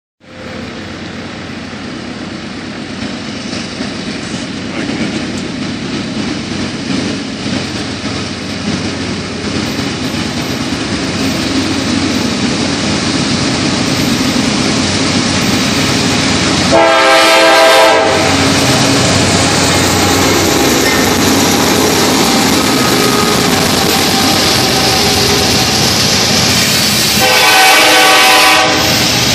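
CSX coal train approaching and passing: the rumble of its diesel locomotives and the rolling of its wheels grow steadily louder, then hold steady as the coal hopper cars go by. The locomotive horn sounds two short blasts, about a second each, one around the middle and one near the end.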